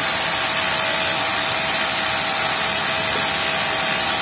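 Yamato flatlock industrial sewing machine running steadily at speed while it stitches a T-shirt bottom hem: an even, continuous mechanical whirr with a steady whine in it.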